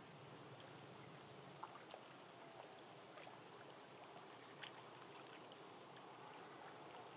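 Faint, steady hiss of light rain falling on leaves and water, with a few scattered drips ticking.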